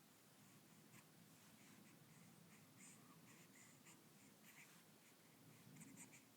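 Near silence: faint room tone with scattered light scratchy ticks and rustles.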